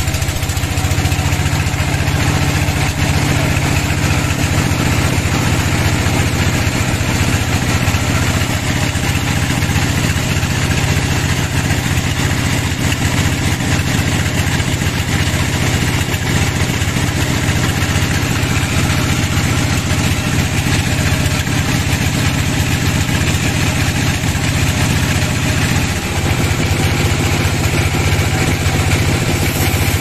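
Large band sawmill running steadily, its blade ripping lengthwise through a big log: an even low machine drone under the noise of the cut.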